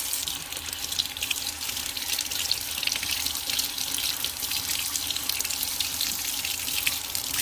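Kitchen tap running into the sink, a steady rush of water as something is rinsed out. It comes on suddenly.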